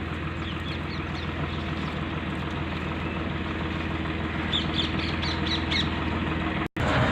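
Small birds chirping, a quick run of short high chirps from about four and a half to six seconds in, over a steady low mechanical hum. The sound drops out for a moment near the end.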